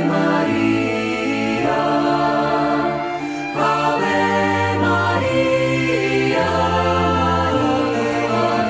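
Hymn music: voices singing over held chords, the notes changing every second or two.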